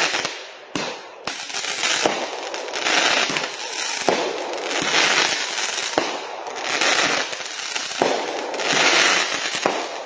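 Consumer-grade aerial fireworks firing shot after shot: sharp bangs about every one to two seconds, each followed by about a second of crackling from the bursting stars.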